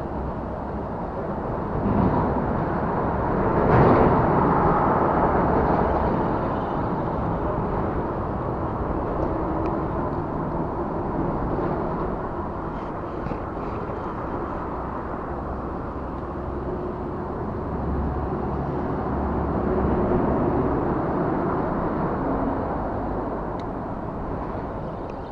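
Lorries and other traffic crossing the bridge overhead, heard from underneath as a steady rumble that swells as heavy vehicles pass, about four seconds in and again near twenty seconds.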